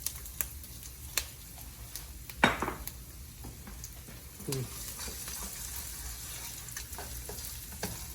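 Ginger sizzling in hot oil in a wok, stirred with a spatula that clicks and knocks against the pan now and then. The loudest knock comes about two and a half seconds in.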